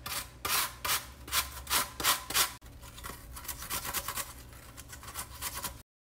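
Peeled apple being grated on a metal grater, with a rasping stroke for each pass. The strokes come about twice a second for the first two and a half seconds, then turn quicker and lighter.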